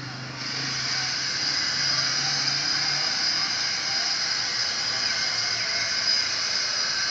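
Steady, high-pitched insect buzzing that starts about half a second in.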